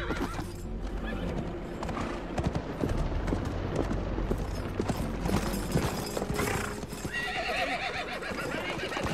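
A horse galloping, its hooves drumming on the ground in quick uneven beats, and a horse whinnying near the end.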